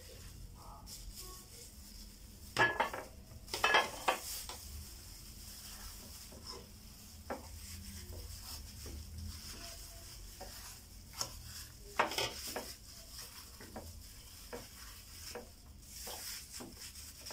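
Plastic-gloved hands working a thick marinade into a whole raw chicken in a glass bowl: wet squelching and slapping, with a few louder knocks and clatters about three to four seconds in and again about twelve seconds in.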